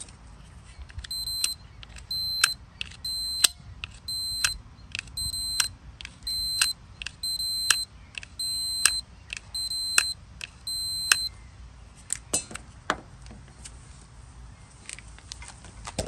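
A digital multimeter's continuity beeper sounds about ten times, roughly once a second, each beep framed by the clicks of a Toro mower safety switch's plunger being pressed and released. The switch closes its circuit every time now that the rust has been cleaned out of it.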